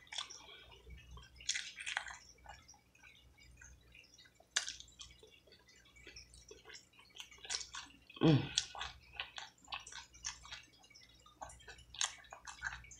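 Close-up wet chewing and lip-smacking of someone eating hot-honey-glazed fried chicken, with scattered sticky clicks as the meat is pulled apart. A short voiced murmur from the eater about eight seconds in.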